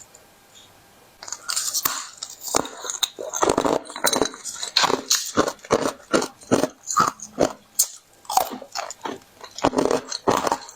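Thin, brittle flower-shaped sheets of ice being bitten and chewed: a dense, irregular run of sharp crunches that starts about a second in.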